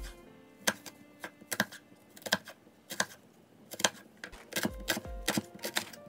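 Background music: a light tune of held notes with sharp ticking clicks about once a second, and a couple of low thumps near the end.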